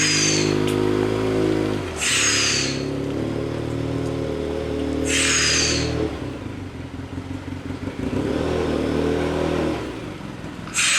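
Side-by-side UTV engine running, its pitch shifting a couple of times and dropping back partway through. Several short, high hissing squeals cut in over it.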